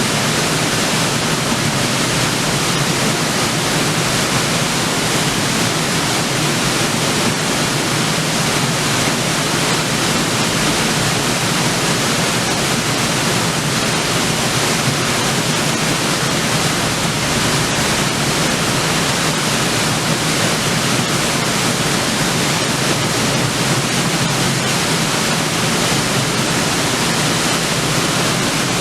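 River waterfall: water falling and splashing onto rocks with a steady, even rush.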